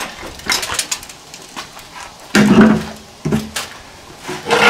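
Work noises from measuring and handling lumber: a few light clicks of a metal tape measure, then two loud wooden knocks about a second apart as a 2x6 board is handled, and a rough scrape of the board near the end.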